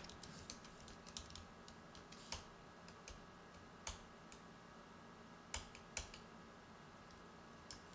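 Faint typing on a computer keyboard: irregular key taps, quick and light in the first second or so, then a handful of louder single taps spread apart.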